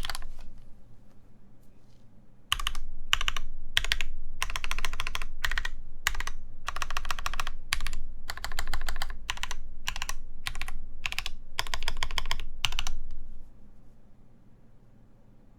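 Typing on an AEBoards Praxis IM mechanical keyboard, with an ABS injection-molded case, full aluminum plate, Zepsody Blue Bonnet switches lubed with Krytox 205g0, and GMK keycaps. After a short pause the keystrokes come in quick runs from about two and a half seconds in, then stop a couple of seconds before the end.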